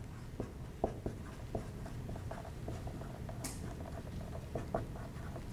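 Dry-erase marker writing on a whiteboard: a run of short, irregular taps and strokes, with one brief higher scrape about three and a half seconds in.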